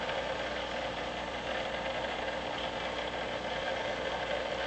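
Aquarium pump running: a steady mechanical hum with an even hiss over it.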